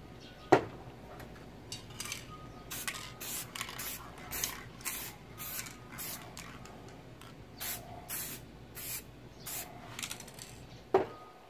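Aerosol spray paint can hissing in many short bursts as paint is sprayed onto paper. A sharp knock about half a second in and another near the end.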